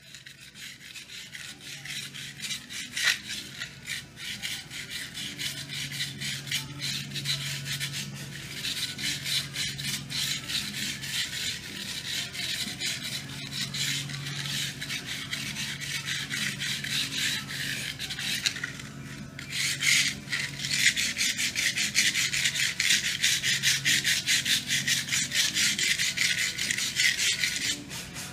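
Hand wire brush scrubbing the char off Lichtenberg burn marks on a wooden board in quick back-and-forth strokes. It stops briefly a little past two-thirds of the way through, then goes on louder.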